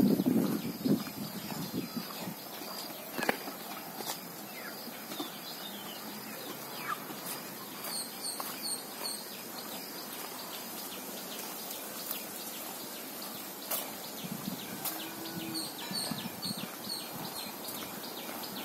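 Small birds chirping in two short runs of quick, high chirps over a steady outdoor hiss, with a few muffled low thumps near the start.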